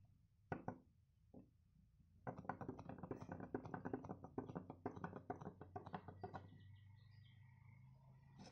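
Wooden hopping-bunny gravity toy walking down a sloped chipboard ramp: after two single knocks, its pivoting leg and body clack against the board in a rapid run of wooden knocks, several a second, for about four seconds, stopping when it reaches the bottom.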